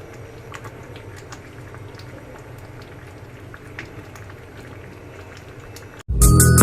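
Pot of beef khichuri bubbling, with scattered small pops over a low steady hum. Loud electronic music cuts in abruptly about six seconds in.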